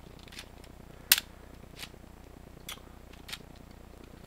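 Sharp plastic clicks from a K'nex gun's hand crank being worked: about five uneven clicks, the loudest about a second in.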